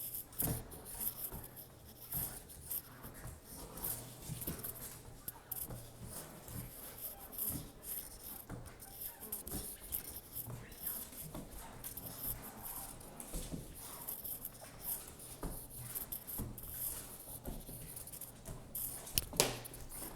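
Faint scuffling and scratching as a puppy scrambles after and bites a flirt-pole lure, with scattered light ticks and one sharper click near the end.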